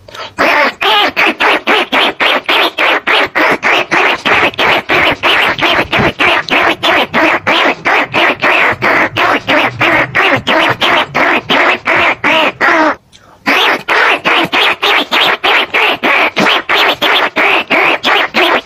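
Rat-lure call recording: rapid squeaking rat calls repeated about four to five times a second, used to draw in greater bandicoot rats and rice-field rats. It breaks off briefly about 13 seconds in.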